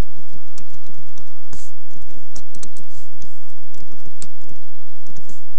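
Typing on a computer keyboard: a run of quick, irregularly spaced key clicks.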